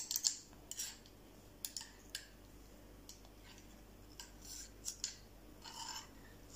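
Faint, irregular little clicks and smacks from a toddler's mouth and fingers as he eats finger food and chews.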